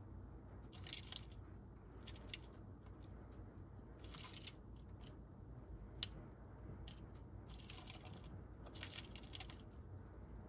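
Faint scratching and clicking of beetles' clawed legs on a plastic jelly cup and the bark and soil, in short scraping spells every second or two, with one sharper click about six seconds in, over a low steady hum.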